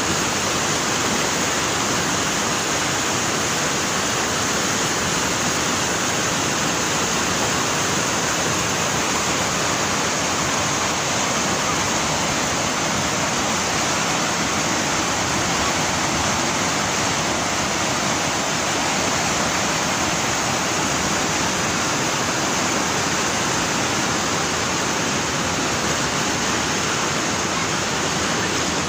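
River rapids rushing over rocks: a steady, unbroken white-water noise.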